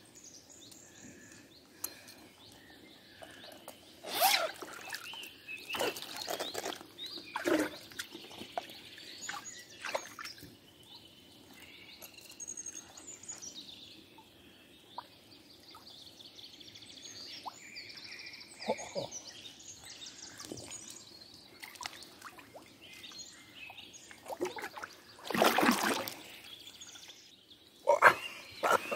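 Birds singing in the background, with several sudden noisy bursts scattered through it; the loudest lasts about a second, a few seconds before the end.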